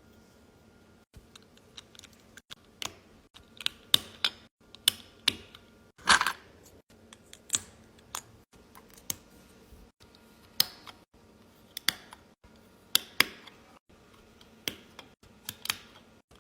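Plastic Lego bricks being handled and pressed together: irregular sharp clicks and snaps, spaced anywhere from a fraction of a second to about a second apart.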